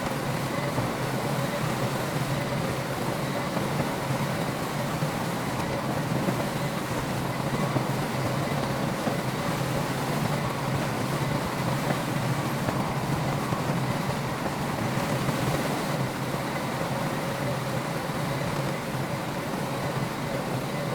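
Diesel engine of heavy earthmoving machinery running steadily: a constant low engine drone with a faint steady whine over it.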